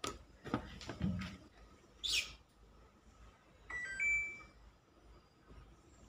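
A few light knocks of parts and tools being handled on the top of a Samsung top-loading washing machine, then about four seconds in its control panel gives a short electronic chime: a few quick high pips and a held beep.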